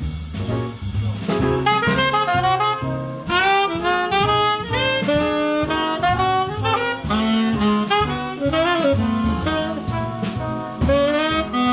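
Tenor saxophone soloing in a swinging jazz blues, playing fast runs of notes, with acoustic bass and drums accompanying.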